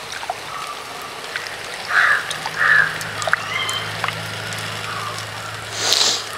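Hands squeezing soaked tamarind in a bowl of water: wet squelching and dribbling of the tamarind water. Two short louder noises come about two seconds in and another near the end.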